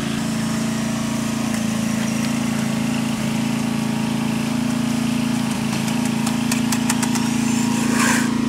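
An engine idling steadily with a constant low hum, with a few faint clicks about six to seven seconds in.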